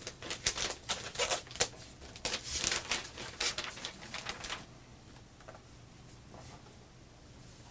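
A quick, irregular run of light clicks, taps and rustles from hands handling the unboxed MacBook Air and its packaging, stopping about four and a half seconds in and leaving only a few faint ticks.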